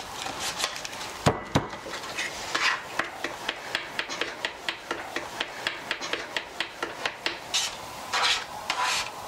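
Edge of a plastic card chopping and scraping a crushed pill into powder on a hard tabletop: quick repeated taps and scrapes, several a second, with two heavier knocks about a second and a half in and a few longer scrapes near the end.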